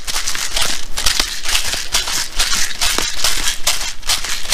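Ground black pepper being shaken from a shaker over a stainless steel bowl: a rhythmic rattling of about three shakes a second.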